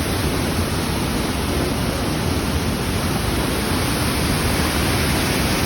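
Rushing water of a mountain stream, a steady, even rush of noise with no break.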